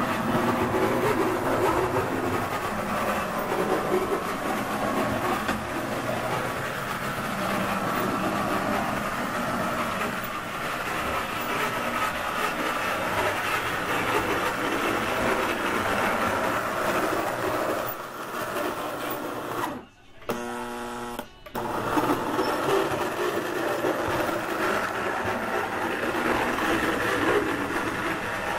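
1938 prewar Lionel 249E O gauge 2-4-2 toy steam locomotive running on three-rail track: a steady whir of its electric motor and gears with wheel rattle on the rails. About two-thirds of the way through, the running noise drops out for a second or so, leaving only a faint hum, then comes back.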